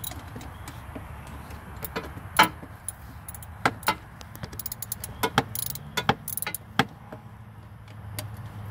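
Hand tools (ratchet, socket and wrench) clicking and clinking against metal in an irregular string of sharp knocks while starter bolts are worked loose, busiest near the middle. A steady low hum runs underneath.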